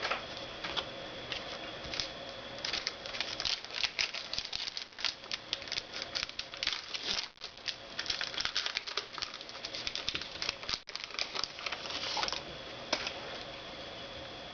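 Trading cards being handled and flipped through: a dense run of small clicks and rustles for about ten seconds, thinning out near the end.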